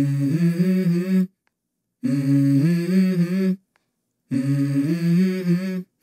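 Soundtrack music: a wordless hummed vocal line sung in three phrases of about a second and a half each, with short silent gaps between them.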